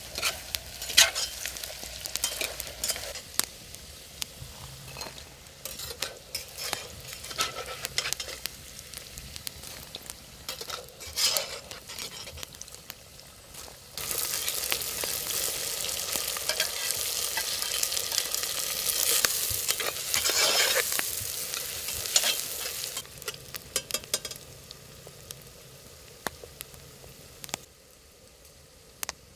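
Food frying in a pan and being stirred, with sharp clicks and scrapes of a utensil. About fourteen seconds in, the sizzle grows to a louder, steady hiss for some nine seconds, then dies back to occasional clicks.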